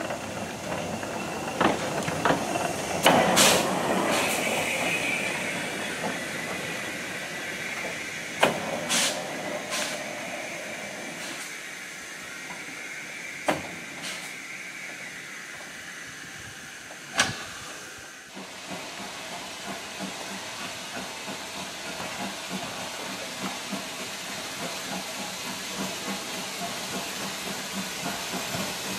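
Industrial saddle-tank steam locomotives hissing steam, with a few sharp clanks and knocks and a loud burst of hiss about three seconds in. After a sudden change about two-thirds of the way through, a steam locomotive hauling carriages approaches with a steady hiss and faint regular ticks.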